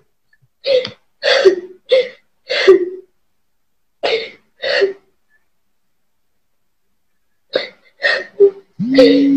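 A woman sobbing: a run of short, catching sobs, a pause of a couple of seconds, then more sobs ending in a drawn-out wail near the end.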